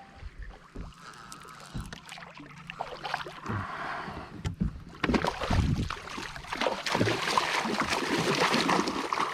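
Water splashing and slapping around a fishing kayak, with scattered knocks. The splashing grows louder and busier about five seconds in.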